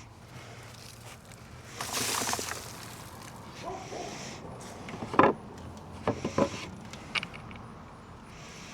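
Garden grow-tower sections and loose soil being handled: a rustling scrape about two seconds in, then several sharp knocks and clicks.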